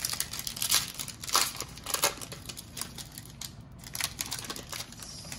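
Foil trading-card pack wrapper being torn open and crinkled by hand: a run of sharp crackles, densest in the first two seconds, thinning out as the cards are drawn from the pack.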